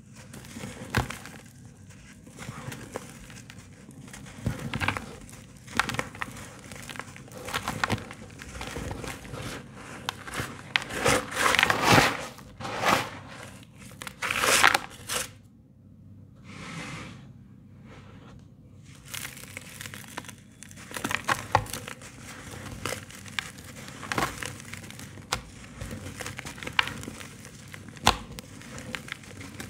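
Dry, dusty sand-and-cement chunks crumbled and crushed by hand: gritty crunching and crackling in irregular bursts as the pieces break apart and fall as powder. The crunches are loudest in a run around the middle, followed by a brief lull.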